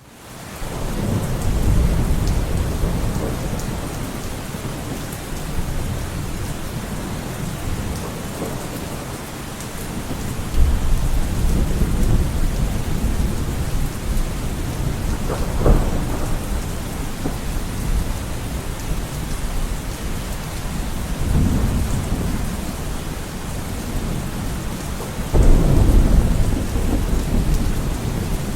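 Steady heavy rain with rolls of thunder rumbling through it several times. There is a sharper crack of thunder about halfway and a heavy rumble near the end.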